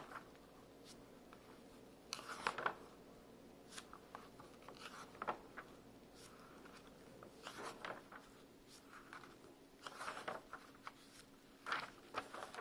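Magazine pages being turned by hand: a quick paper rustle and swish every one to three seconds, over a faint steady hum.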